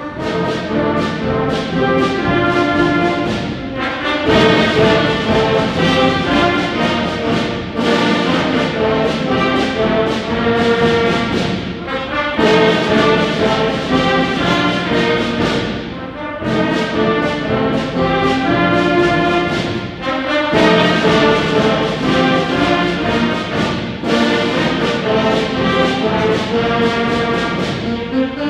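A school instrumental ensemble playing a slow piece, with brass to the fore: sustained chords in phrases about four seconds long.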